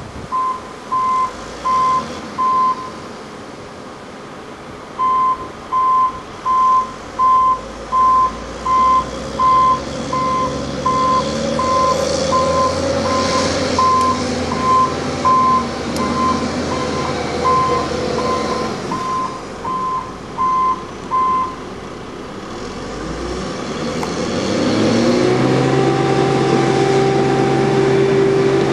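Articulated dump truck's reversing alarm beeping at a steady rate, about one and a half beeps a second, over its diesel engine; the beeps pause briefly early on and stop about two-thirds of the way through. Near the end the engine revs up and holds a higher, louder note as the dump body is raised to tip its load.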